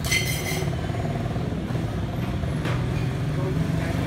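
Steady low rumble of street traffic, with a brief sharp high-pitched sound right at the start.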